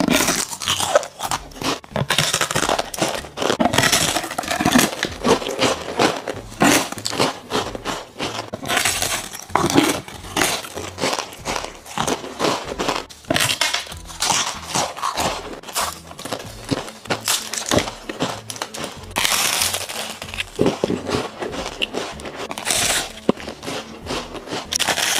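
Close-miked crunching of a large, thin, crispy fried sheet being bitten and chewed. Sharp cracks and crunches follow one another in quick succession.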